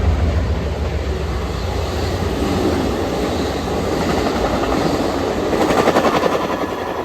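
Amtrak passenger train rolling past, steel wheels on the rails giving a steady rumble, with the locomotive's low diesel rumble fading in the first second. About six seconds in, the rolling swells into a stretch of rapid clacking over the rail joints.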